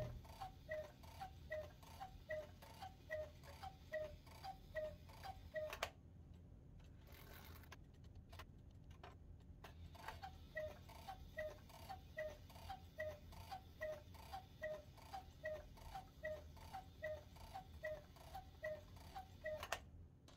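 1950s German one-day cuckoo clock ticking steadily, a little over two ticks a second. The ticking stops for about four seconds midway, then carries on.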